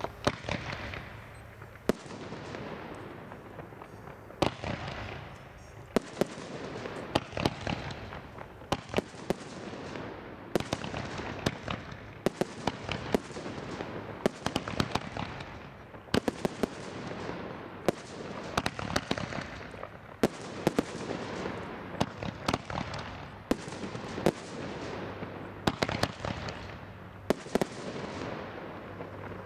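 A 25-shot firework cake of 2-inch peony shells with glitter centres firing in sequence. It gives a sharp bang roughly once a second, and each bang trails off in a fading hiss.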